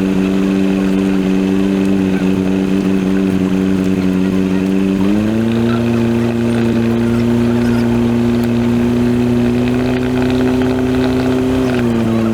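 Cessna 172's engine and propeller drone in the cockpit, a steady tone that steps up in pitch about five seconds in as the RPM rises, then eases back down near the end.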